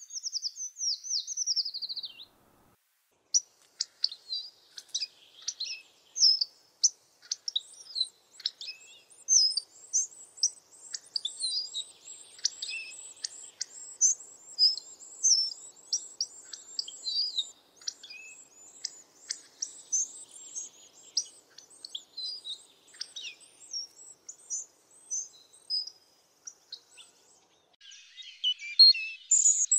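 Songbirds singing: a falling trill to start, then, after a short break, a busy stream of chirps, whistles and trills, with a louder bout near the end.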